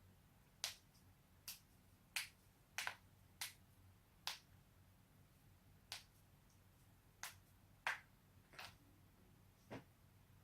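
Neck and back joints cracking: about eleven sharp single pops, spaced irregularly about a second apart, one of them doubled.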